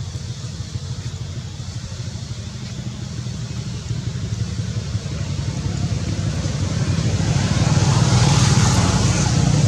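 A motor vehicle's engine running, with a low rumble and hiss that grows steadily louder through the second half.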